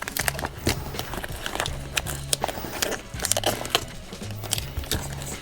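Background music with a low bass line, over irregular sharp clicks and taps from the hose fitting being worked on by hand.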